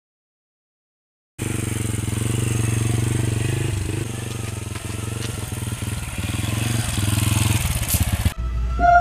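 After a second and a half of silence, a motorcycle engine runs steadily, its pitch wavering a little. It cuts off suddenly near the end.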